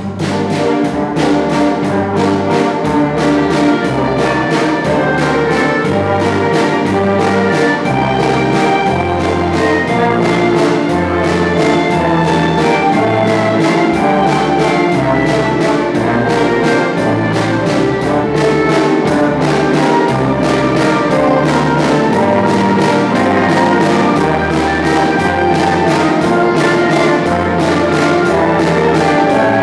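School orchestra of strings, brass, guitars and drum kit playing a piece together, the brass to the fore over a steady beat and a stepping bass line. The full ensemble comes in all at once at the very start.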